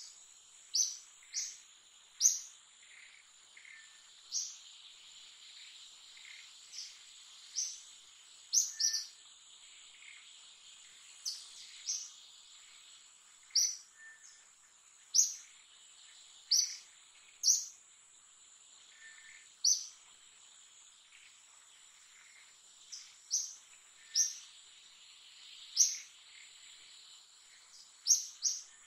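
Short, high bird chirps repeated every second or two, often in quick pairs, over a steady high-pitched insect drone.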